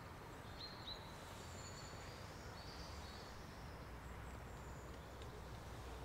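Faint background with a steady low hum and a few short, high bird chirps and trills in the first few seconds.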